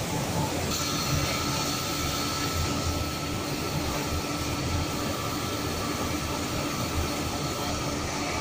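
Automatic train wash plant running: spinning brushes and water spray scrub the side of a passenger coach, a steady wash of noise. A steady high motor whine comes in about a second in.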